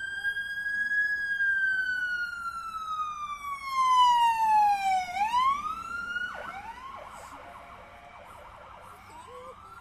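Fire truck siren wailing as the truck passes close by: the pitch falls slowly for about five seconds, swings back up and then cuts off about six seconds in. Fainter wavering siren sounds carry on after it.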